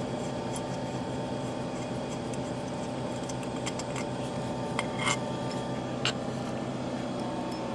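A few light metallic clicks and taps of bolts and hand tools being handled during engine teardown, over a steady background hum.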